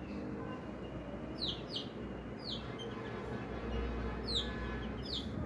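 Chicks peeping: about six short, high, falling peeps, mostly in pairs.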